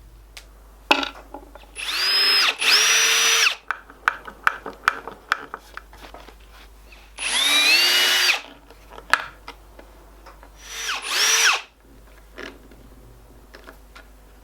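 A small handheld power tool's motor run in three short bursts of one to two seconds each, each spinning up to a steady whine, the first stopping briefly and restarting. Scattered sharp clicks and knocks fall between the runs.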